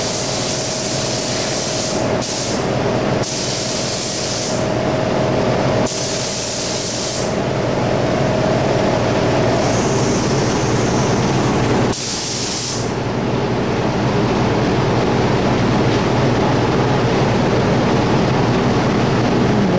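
Paint spray gun triggered in short bursts of hissing spray, about five in all and each a second or so long, the last about 13 seconds in. A steady machine drone runs underneath, with a faint tone in it that stops about halfway through.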